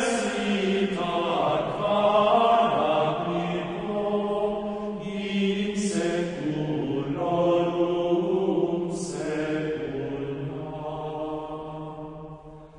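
Slow sung chant in a low male voice range: long held phrases with short breaths about six and nine seconds in, fading out near the end.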